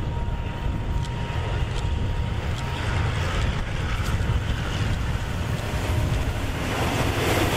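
Hitachi 8FA-36C diesel-electric locomotive hauling a container freight train approaching: a steady low diesel rumble mixed with wind noise on the microphone, growing louder with rising wheel-and-rail noise as the locomotive comes level near the end.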